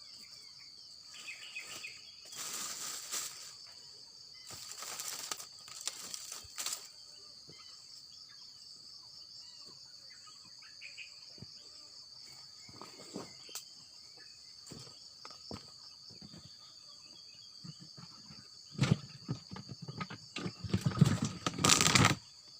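A steady, high-pitched chorus of insects, such as crickets, runs throughout. It is broken several times by short bursts of rustling noise, and the loudest cluster comes near the end.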